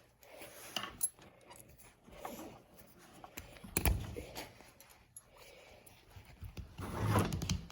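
Light clinks and clatters of small metal parts and tools being handled while a microwave oven is taken apart, with a sharper knock about four seconds in.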